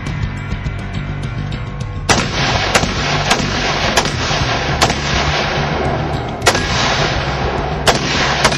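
AR-15 carbine firing about eight shots, the first about two seconds in, at uneven spacing of roughly half a second to a second and a half, over background music.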